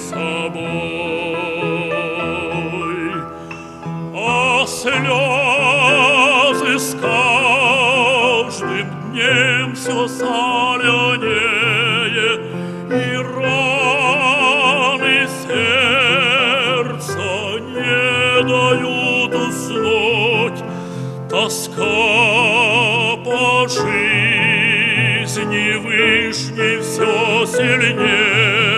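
Male opera singer singing a slow sacred song in Russian with wide vibrato, accompanied by piano.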